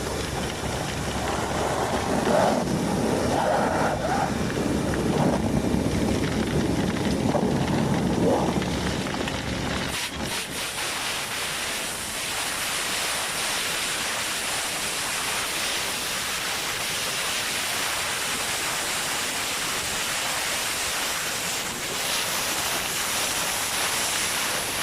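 Vacuum excavator running: a steady loud rush of air and machinery from its blower and suction. About ten seconds in it changes abruptly to a smoother, hissier rush.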